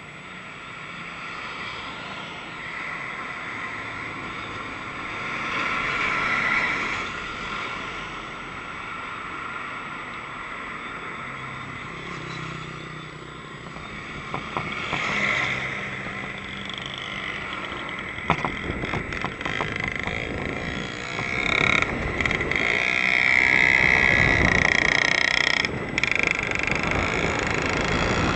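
Road traffic heard from a moving bicycle on the road shoulder. Motorcycles, cars and a lorry go by in a continuous rush that swells as vehicles pass, loudest near the end. There are a few sharp rattling clicks in the second half.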